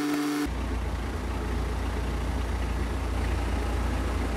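A tractor's diesel engine starting: a steady whine stops about half a second in as the engine catches, and the engine then idles with a steady low rumble.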